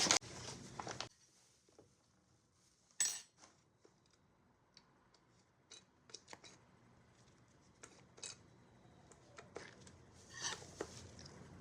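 Scattered light clicks and scrapes of kitchen utensils against containers while flour is handled, with one sharper clatter about three seconds in.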